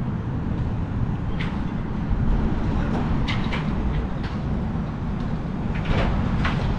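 Steady low rumble with a few scattered light clicks and knocks through it.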